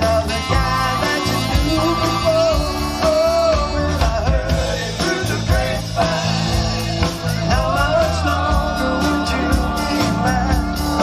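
Live band performing a song with a lead vocal and drums, amplified through the PA system.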